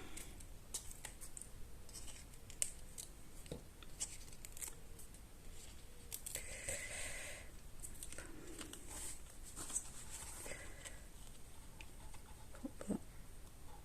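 Quiet paper-craft handling: scattered light clicks and taps on card, with a brief papery rustle about seven seconds in, as the backing is peeled off foam adhesive dimensionals.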